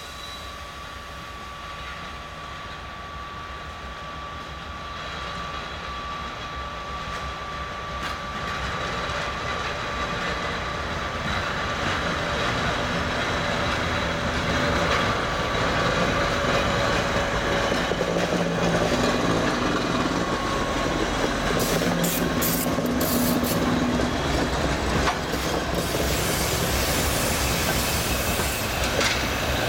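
TEP70 diesel passenger locomotive with one rail flaw-detector coach approaching and passing: its 16-cylinder diesel engine running, growing louder over the first half and then holding. In the second half come sharp clicks of the wheels over rail joints as the locomotive and coach go by.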